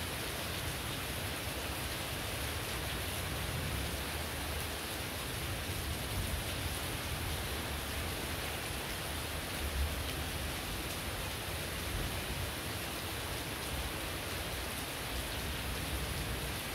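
Heavy rain falling steadily, a dense even hiss of drops. Beneath it is an uneven low rumble that swells briefly about ten seconds in.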